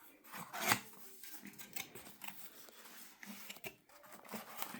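A cardboard product box being opened by hand: scratchy scraping and rustling of the packaging. The loudest scrape comes about half a second in, followed by smaller rustles and clicks.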